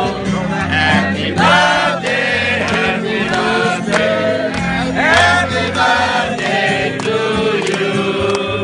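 A group of people singing a song together, with held low notes underneath.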